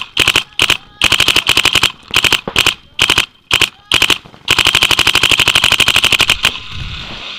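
Dye DM12 electronic paintball marker firing rapid strings of shots. It fires several short bursts with gaps between them, then a long unbroken string of about a dozen shots a second that stops about six and a half seconds in.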